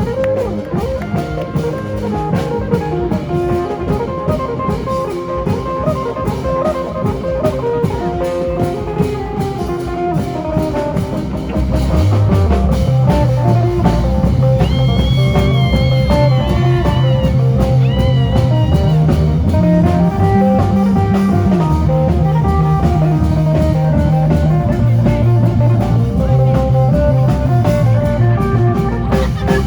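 Isan folk band playing lam phloen: a phin (Isan electric lute) picks a fast melody over a drum-kit beat. About twelve seconds in, a heavy bass line comes in and the music gets louder.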